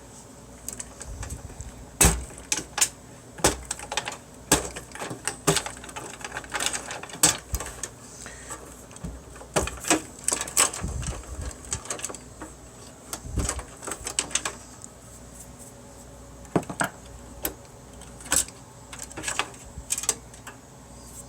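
Irregular clicks, clinks and knocks of screws and small metal computer-case parts being handled and set down while the case is taken apart.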